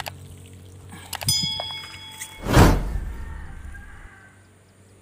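A garden tap's handle clicks as it is turned off, followed by a few knocks and a short ringing tone, then a loud rushing burst of noise about two and a half seconds in that fades away.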